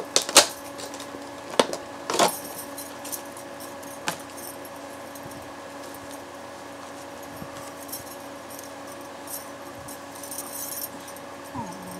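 Stacked bracelets jangling and clicking on a wrist as the hands move, with a few sharp knocks in the first four seconds and lighter jingling later on. A steady low hum runs underneath.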